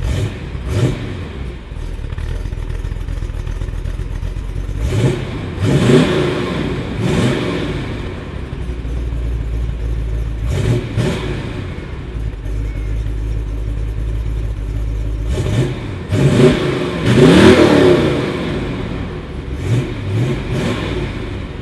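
1979 Holden VB Commodore's rebuilt 5-litre Holden V8 idling through its ceramic-coated stainless exhaust and revved several times, each rev rising and falling quickly. The biggest, longest rev comes about three-quarters of the way through.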